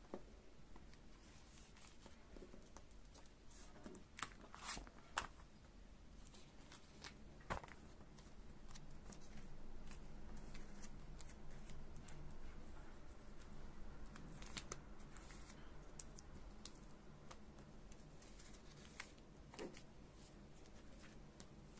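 Faint rustling of thin clear plastic sleeves and binder pocket pages, with scattered light clicks and taps as photocards are handled and slid into the pockets.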